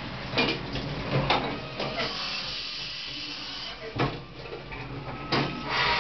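Fadal CNC mill drilling holes in humbucker keeper bars with a small TiCN-coated drill under flood coolant: the spindle runs steadily, with several short, sharp cutting bursts as the drill goes into the metal, and grows louder again near the end.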